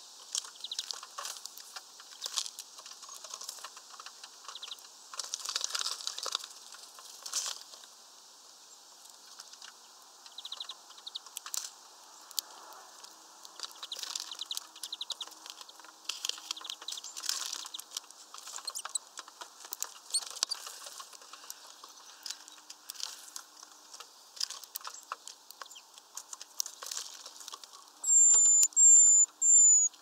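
Small birds moving about a plastic tray feeder and its branch perch, making scattered clicks, taps and short wing flutters. Near the end come three loud, high, thin calls in quick succession.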